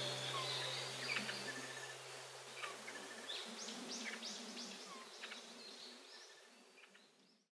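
Forest ambience: an insect buzzing low and wavering, with scattered short, high bird chirps. A held low note of background music ends about three and a half seconds in, and everything fades out just before the end.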